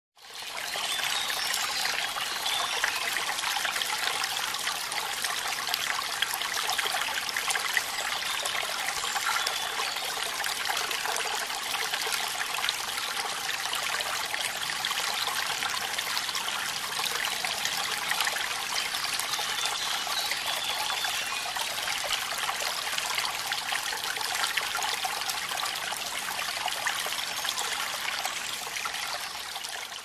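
Shallow stream running steadily over stones, an even, bright rush of flowing water.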